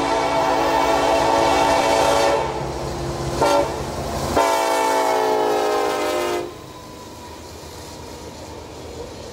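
Norfolk Southern SD70ACe diesel locomotive's multi-chime air horn blowing over the rumble of a passing freight train. The horn breaks off a little past two seconds in. A second horn blast cuts in abruptly about four seconds in, its pitch sagging slightly, and stops about two seconds later, leaving a quieter, steady train sound.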